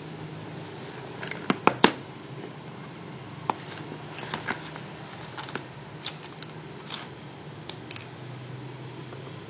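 Origami paper being folded and creased by hand: a quick run of sharp crinkles and taps about one and a half seconds in, then scattered softer crinkles, over a steady low hum.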